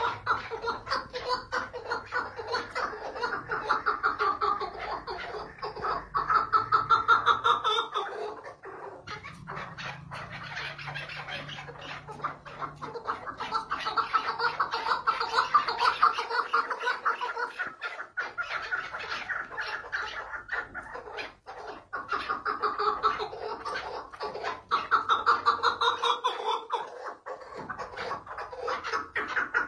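Caged chukar partridge (a 'lal' keklik) calling in long runs of rapid, repeated notes. Each run lasts several seconds, with brief pauses between runs.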